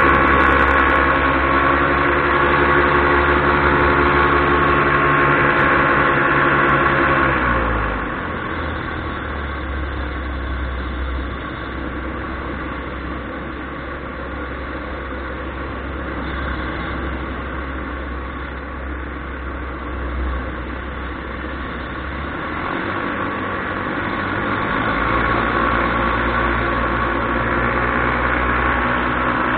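Paramotor engine and propeller running at high power, throttled back about a quarter of the way in to a lower, quieter drone, then powered up again near the end.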